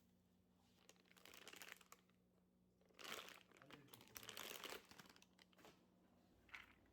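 Faint crinkling and rustling, like crinkly material being handled, in three or four short spells over a low steady hum.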